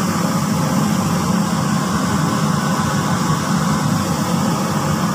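A steady mechanical hum with a hiss over it, unchanging in level and pitch.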